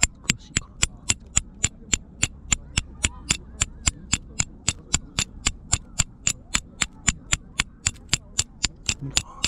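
A C-shaped steel fire striker struck again and again against a fire-striking stone, flint-and-steel style: a steady run of sharp metallic clicks, about four a second.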